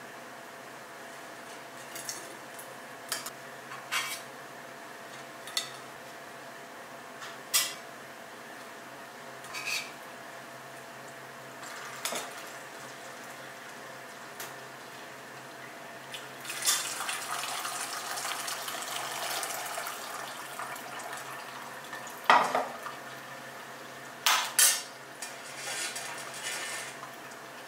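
Stainless steel utensils clinking and tapping against a mesh strainer and a stainless pot, a few separate clinks spread over the first half. Then warm beer is poured from a saucepan through the strainer into the pot, a steady splashing pour for several seconds, followed by a loud metal knock and two more clinks near the end.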